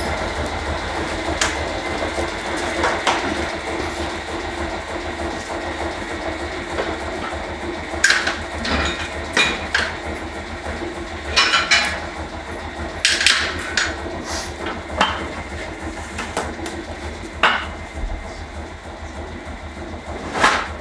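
1970 Heidelberg Windmill platen letterpress running: a steady machine hum with sharp metallic clacks every second or two. It is making a make-ready pass without ink to set the print's position.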